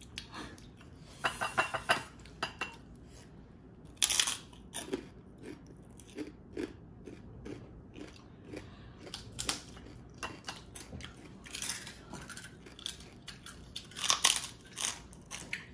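Close-up crunching and chewing of very crispy fried pork chicharon (pork rinds). Sharp crackling bites come every few seconds, with a denser run of crunches near the end as a fresh piece is bitten.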